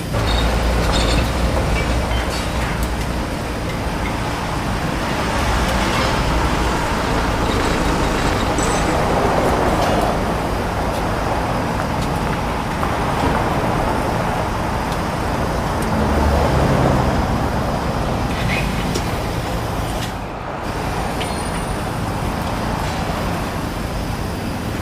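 Steady motor-vehicle and engine noise, a continuous rumble with hiss, dipping briefly about twenty seconds in.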